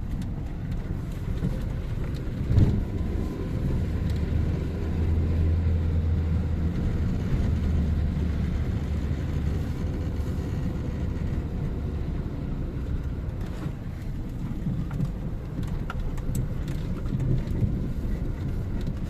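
Low, steady rumble of outdoor street noise, swelling for a few seconds as if a vehicle passes. There is a single knock about two and a half seconds in.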